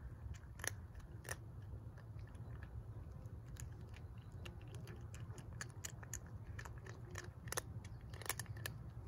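Ginger cat crunching dry kibble: a quick, irregular run of sharp crunches, with a few louder ones about a second in and again near the end.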